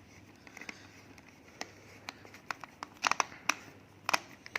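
Aluminium foil crinkling, with small sharp clicks as it and the toy's parts are handled; louder clusters come about three seconds in and again near the end.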